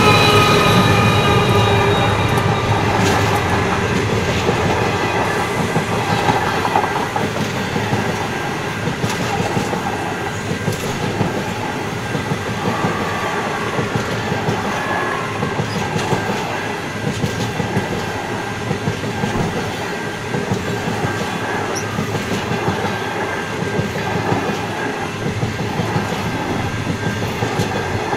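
A long passenger train rolls past close by, with a steady rumble of steel wheels on rail broken by irregular clicks over rail joints. In the first couple of seconds a steady whine from the trailing NR-class diesel-electric locomotive fades away as it moves off.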